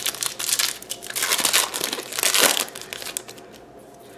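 A foil Yu-Gi-Oh! booster pack torn open and crinkled by hand, in several rustling bursts, loudest about a second and a half and two and a half seconds in, dying away near the end.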